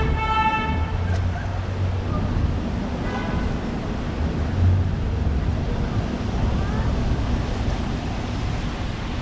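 Steady rumble of wet street traffic mixed with wind on the microphone. A car horn that was already sounding cuts off under a second in, and a brief faint tone follows about three seconds in.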